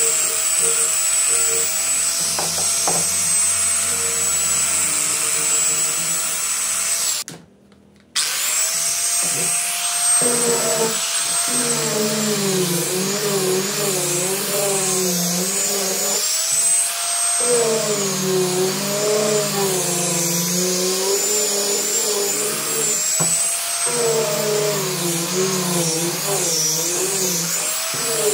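Handheld angle grinder with a sanding disc running at speed and sanding a wooden strip: a steady high whine whose pitch wavers and dips as the disc is pressed into the wood. The sound drops out for about a second around seven seconds in.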